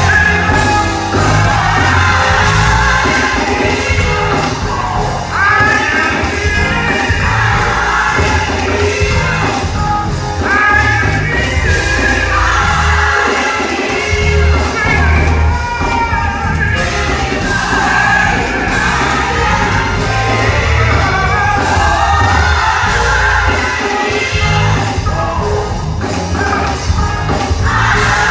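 Loud gospel music: a singer belting over a heavy bass line.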